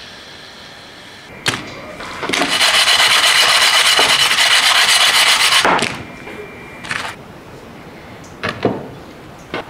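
Fried churros tossed in cinnamon sugar in a metal pan: a loud, gritty rasping of sugar and dough sliding against the metal, starting about two seconds in and lasting about three seconds. Before it there is a faint sizzle of a churro frying in oil, and near the end a few short knocks.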